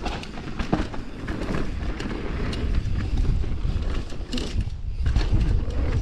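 Mountain bike riding fast down a dirt trail: wind rushing over the microphone and tyres rolling on dirt, with frequent rattles and knocks from the bike over bumps.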